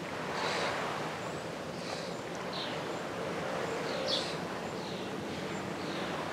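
Birds giving short, high chirps about once a second, the loudest about four seconds in, over a steady rush of wind.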